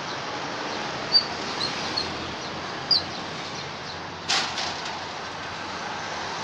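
Steady street background noise with a few short, high chirps in the first three seconds and one brief harsh rasp just after four seconds.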